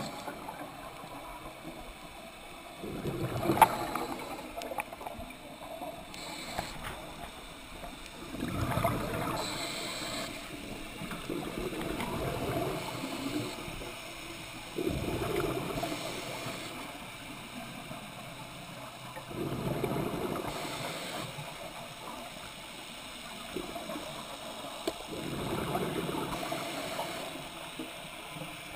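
Scuba diver breathing through a regulator, heard underwater: bursts of exhaled bubbles gurgling and rushing about every five seconds, with quieter gaps between them.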